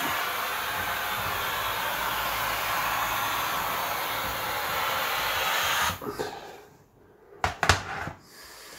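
Kärcher steam cleaner jetting steam onto a kitchen cabinet front with a steady hiss, which cuts off suddenly about six seconds in. Two sharp clicks follow about a second and a half later.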